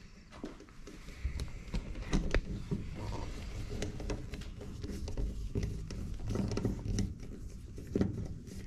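Screws being driven by hand with a screwdriver into a screen door closer bracket: scattered small clicks, creaks and scrapes of metal on metal, over low handling rumble.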